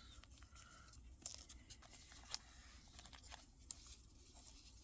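Near silence: room tone with a few faint clicks from trading cards being handled.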